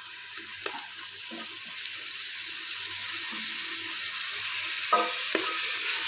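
Sliced onions and tomatoes sizzling in hot oil in an aluminium pressure cooker, stirred with a flat metal ladle that scrapes the pot now and then. The sizzle grows louder after about two seconds.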